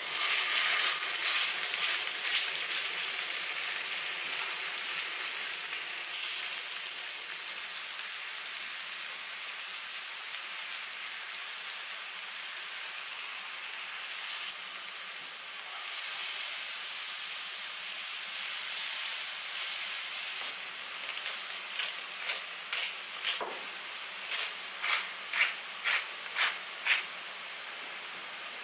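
Ground chicken sizzling in hot oil in a frying pan as it is stirred with a wooden spatula; the sizzle is loudest at first, fades, and swells again about halfway. Near the end the spatula strikes the pan about twice a second, breaking up the meat.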